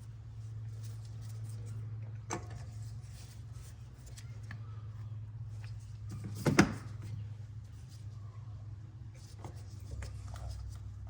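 Ignition coils being fitted by hand into the spark plug wells: light clicks and handling noise, with a sharp knock about six and a half seconds in, over a steady low hum.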